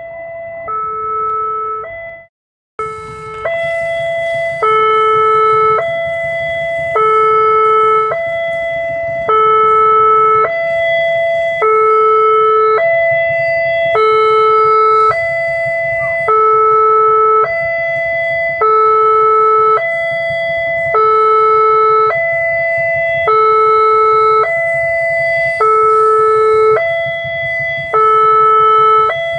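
Railway level-crossing warning alarm sounding a loud repeating two-tone electronic chime, the two notes alternating about once a second, the signal that the barriers are closed and a train is approaching. It breaks off briefly about two and a half seconds in, then carries on.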